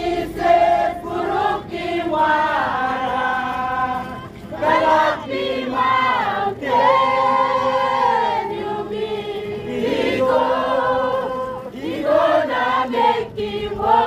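A group of many voices singing a hymn together, with long held notes.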